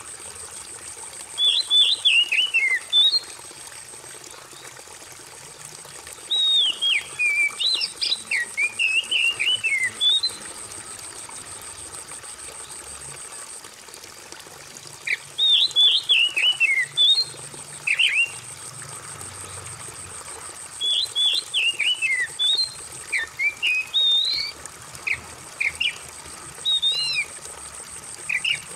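Oriental magpie-robin (kacer) singing in bouts of quick, varied whistled phrases with short pauses between, over steadily trickling water.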